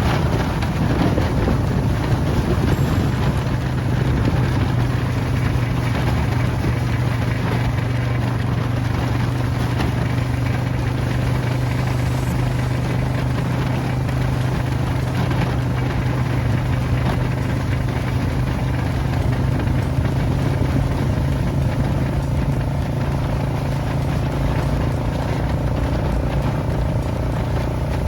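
Tractor engine running at a steady speed, a constant low drone.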